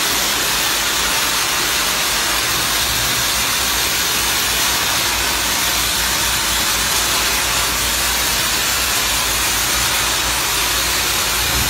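Water jets of an automatic motorcycle wash cabinet spraying steadily, a constant hiss of spray, with a low rumble underneath.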